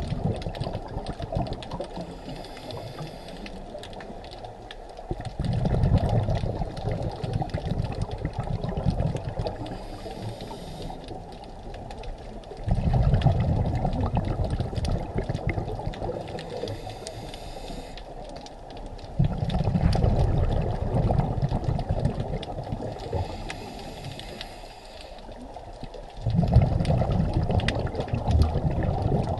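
Scuba diver's exhaled bubbles rumbling and gurgling out of the regulator in four bursts, about one every seven seconds, heard underwater over a steady crackling hiss between breaths.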